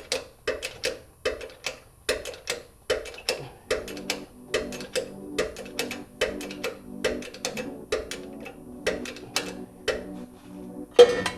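Background music with a steady clicking beat, about two to three clicks a second over sustained tones.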